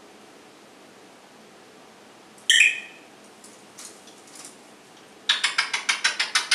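African grey parrot calling: one short, sharp whistle about two and a half seconds in, then a fast run of sharp beeps, about ten a second, from about five seconds in.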